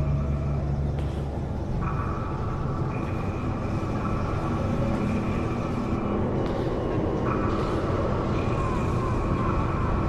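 Steady low rumble with a hum, like a basement furnace, under sustained high eerie tones that shift in steps every few seconds: a horror film's droning ambient sound design.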